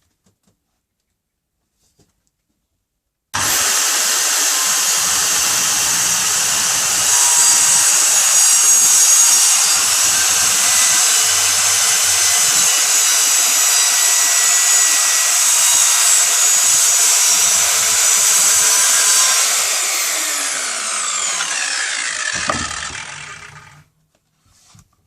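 Evolution R185CCSX multi-material circular saw starting suddenly about three seconds in and running at full speed through a long cut in a scrap piece of wood. Near the end the trigger is released and the motor and blade wind down with a falling whine until they stop.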